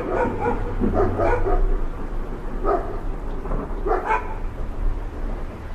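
A dog barking several times, singly and in quick pairs about a second apart, over a steady low hum.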